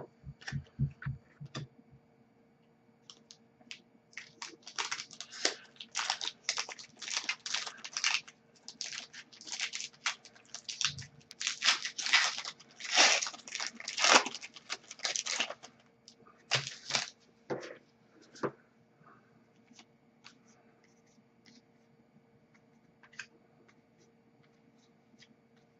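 Foil trading-card pack being torn open and crinkled, a dense run of short rustling tears and crackles in the middle, with scattered card-handling clicks before and after.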